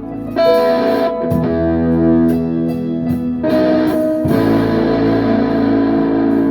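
Guitar playing held chords, moving to a new chord every second or so.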